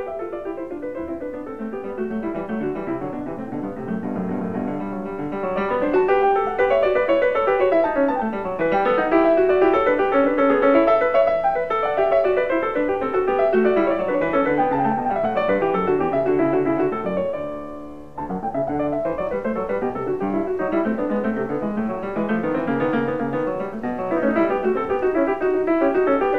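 Background piano music, quick rolling runs of notes sweeping up and down, dipping briefly about two-thirds of the way through before carrying on.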